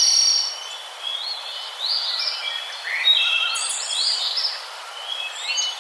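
Several small birds chirping and twittering over one another in short calls, some sliding up or down in pitch, over a steady background hiss.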